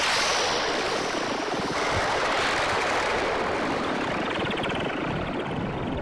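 PPG Infinite Pro software synthesizer playing its 'Freeze 66 + FX 8' patch: a dense, steady wash of noise spanning low to high pitches, with a fast flutter appearing in its upper part about halfway through.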